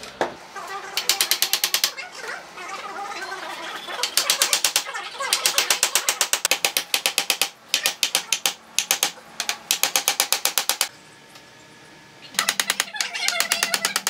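Claw hammer driving nails into pine framing battens: runs of rapid taps, about nine a second, broken by short pauses.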